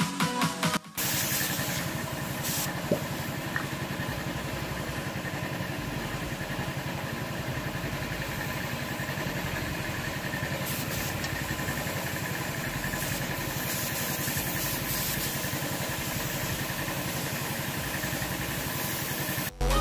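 Air compressor's motor running steadily with a fine, even pulse, while a spray gun hisses out a thin, even mist coat of clear over a helmet.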